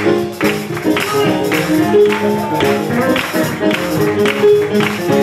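Live uptempo gospel music: a church band playing the song's instrumental intro over a steady, driving percussive beat, with the choir clapping along.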